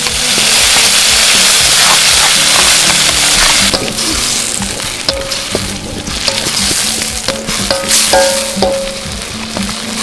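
Small birds and spice paste sizzling hard in hot oil in a wok as they go in, the sizzle easing after about four seconds, with a spatula scraping and clicking against the wok as the food is stirred.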